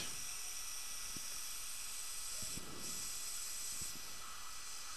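A steady, faint hiss with a few faint ticks, and a short faint tone near the end.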